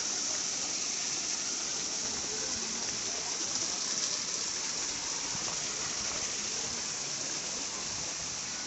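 Steady rush of water from a small stream running over rocks, easing off slightly near the end.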